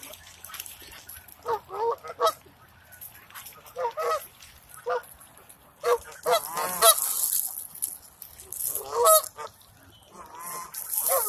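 Canada geese honking in short clusters of calls every second or two, several birds at once. A brief rushing noise comes in about six seconds in and again near the end.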